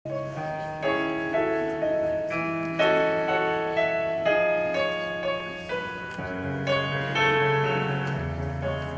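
Keyboard music: a slow melody over held chords, with deeper bass notes joining about six seconds in.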